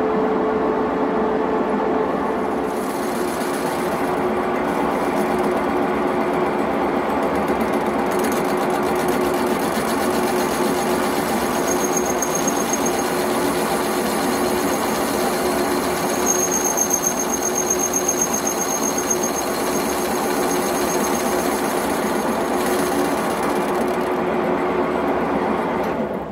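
Metal lathe running steadily, spinning a jet engine nozzle guide vane ring in its chuck while a tool bit deburrs the ring's edge. A thin high whistle comes in briefly twice around the middle.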